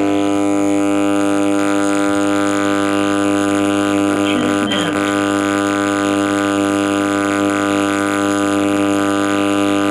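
Home theater amplifier's speakers giving out a loud, steady buzzing hum with an audio line connected. This is the fault being shown; it is typical of a bad volume control, a broken audio or ground wire to the volume control, or a weak filter.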